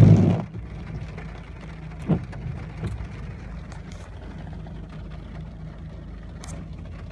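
Heavy rain on a car's windshield and roof, heard from inside the car over the steady low hum of the idling engine. A loud thump right at the start and a smaller knock about two seconds in.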